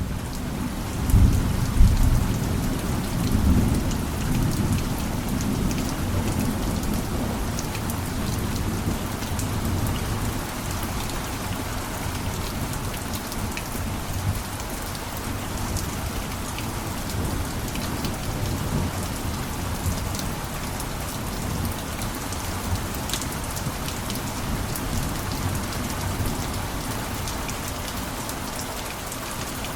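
Steady rain falling, with individual drops ticking throughout. A low rumble of thunder swells in the first few seconds, then eases.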